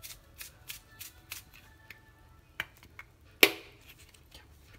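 Chili powder shaken from its container over raw chicken in a glass bowl: a run of quick, light shakes in the first second and a half, then a sharp clink about three and a half seconds in. Faint background music runs underneath.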